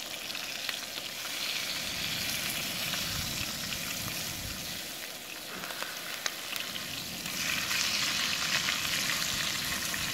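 Bacon frying in a pan: steady sizzling and crackling that gets louder about seven seconds in.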